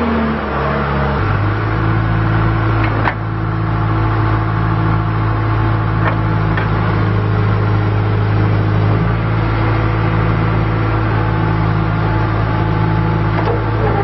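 John Deere 310G backhoe loader's four-cylinder diesel engine running steadily while the backhoe arm is worked, its note stepping up about a second in. A few sharp metallic clanks come through at intervals.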